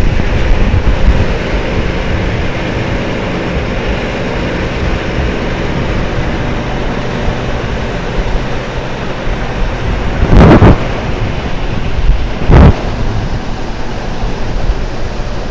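Steady din of a running bagging plant's machinery, with a low hum under it. Two loud, short noises come about ten and twelve and a half seconds in.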